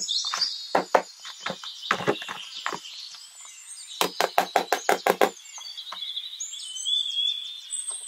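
Sharp knocks and taps on a small cardboard box as fingers and a plastic cutter handle it, in small groups with a quick run of about eight taps near the middle. Birds chirp in the background.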